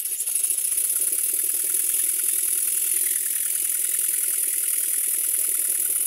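Stuart Models Twin Launch twin-cylinder model steam engine running in reverse on compressed air: a rapid, even exhaust beat over a steady hiss of air. Its reversing valve gear has just been adjusted, and it is starting to sound altogether better.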